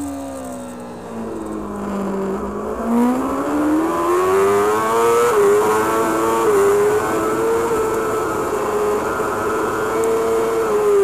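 Racing superbike inline-four engine heard from an onboard camera: the pitch falls for about two seconds as the bike slows, then climbs steeply under hard acceleration. It dips briefly twice around the middle as it changes up a gear, then holds high revs near the end.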